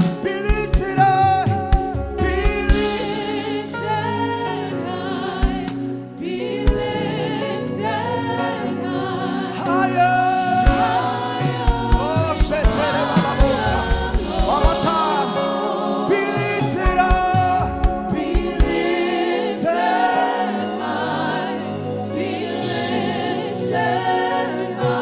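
Live gospel worship music: singers with a choir over a band with keyboard, bass and drums.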